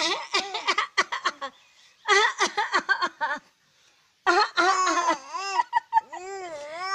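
Baby's voice: quick runs of short, high squeals and giggle-like sounds, then from about four seconds in, longer wavering cries.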